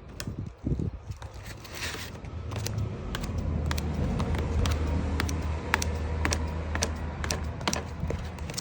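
A blade chopping spaghetti into small pieces, giving irregular sharp clicks. A low steady hum rises underneath from a few seconds in and fades near the end.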